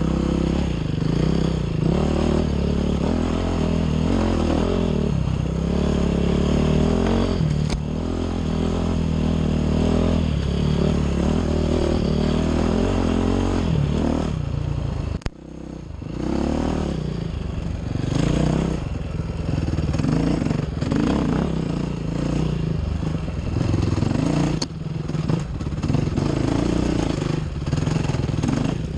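Enduro motorcycle engine running hard on a dirt and rocky climb, its pitch rising and falling with the throttle, with clatter from the bike over rough ground. About fifteen seconds in the engine note cuts off suddenly, then builds back up.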